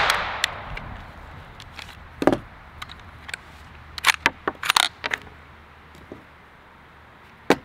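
The echo of a 9mm KRISS Vector shot dies away through the woods over about a second. Then come scattered metallic clicks and clacks as the carbine is handled and its magazine is taken out and laid on a wooden table.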